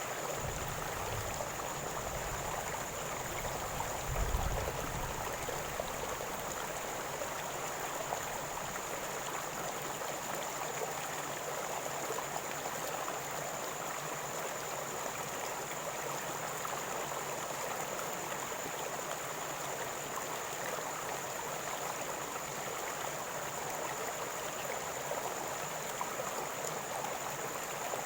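River water running and gurgling over stones in a steady, even rush. A brief low rumble about four seconds in.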